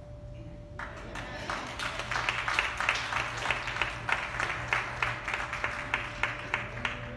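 Audience applauding: a crowd clapping that starts about a second in and stops just before the end.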